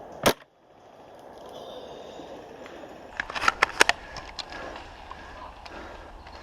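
Airsoft guns firing outdoors: one sharp crack just after the start, then a quick cluster of several cracks between about three and four seconds in, over steady outdoor background.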